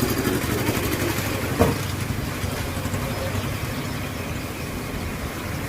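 Steady low rumble of a running engine, with one sharp click about a second and a half in.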